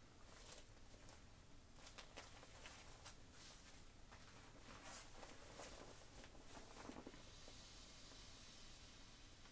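Faint crinkling and rustling of a plastic inflatable children's surfboard being hugged, squeezed and shifted to press the air out, in scattered bursts over the first seven seconds, then only a faint steady hiss.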